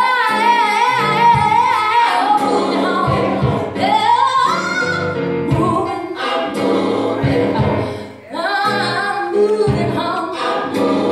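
Gospel song, the track for the praise dance: a lead voice sings three long, swooping phrases about four seconds apart over a steady bass and beat.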